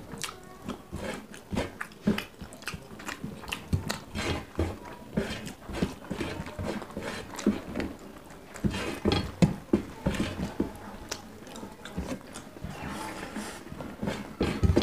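Close-miked eating by hand: chewing and lip-smacking, with fingers mixing rice on steel plates. It comes as an irregular run of short clicks and smacks.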